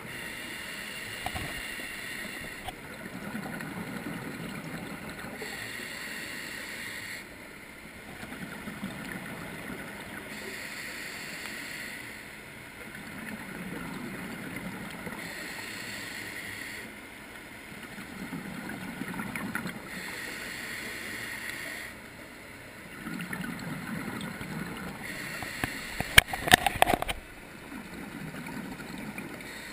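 Scuba diver breathing through a regulator underwater: a hissing inhale alternating with a bubbling exhale, about every five seconds. Near the end, a quick run of sharp clicks and knocks is the loudest sound.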